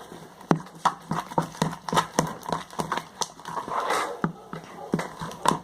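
Sticky, half-activated glue slime being worked and pulled, giving a run of wet clicks and snaps, a few a second, with a brief squelching patch near the end.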